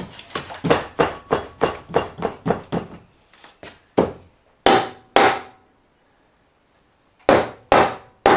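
Hammer nailing a wooden header into a stud wall frame: a quick run of blows, about four a second, for the first three seconds, then slower single heavy blows with a short metallic ring, a pause of a second or two, and a few more blows near the end.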